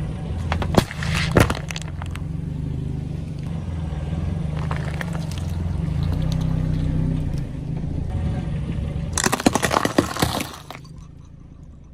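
A car engine running low and steady as the tyres roll over objects, which crack and crunch in short bursts: a few sharp cracks about a second in, and a denser run of crackling from about nine to ten and a half seconds. The engine sound drops away near the end.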